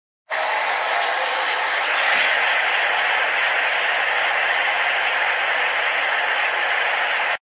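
Steady, loud rushing noise like static, starting after a brief silence and cutting off suddenly near the end.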